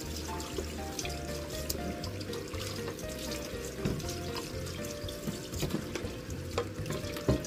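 Tap water running into a stainless sink while a knife and then a plastic cutting board are rinsed under it, with small clatters and a sharp knock near the end. Background music with a simple melody and steady bass plays over it.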